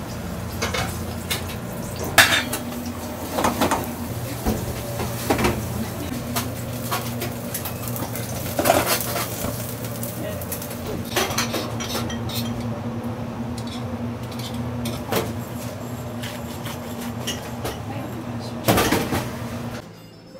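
Metal frying pans and a utensil clanking and knocking on a gas range while pasta is cooked, over a steady low hum. The clanks come irregularly, with a loud cluster near the end.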